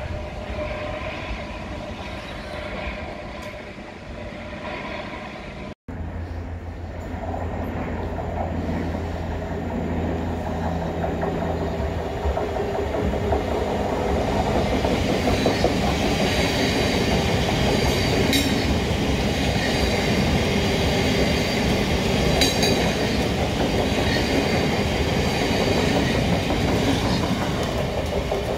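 A Class 376 electric train with a steady whine, then, after a sudden break, a Class 700 electric train running through the station: it grows louder over several seconds into a steady rumble, with wheels clicking twice over rail joints.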